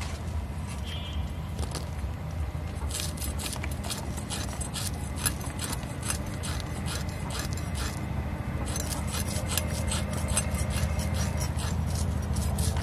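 Koi fish (climbing perch) being scaled and cut on boti blades: rapid, irregular scraping clicks of scales and skin against the metal, starting about three seconds in and growing denser, over a steady low rumble.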